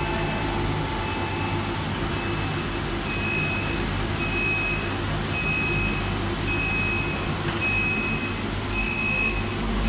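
Automated vat phosphating line running: a steady machine and electrical hum, with a short high beep sounding about once a second.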